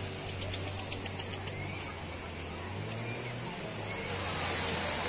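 Outdoor ambience: a low steady hum, a quick run of faint clicks about half a second to a second and a half in, and a few faint bird-like chirps.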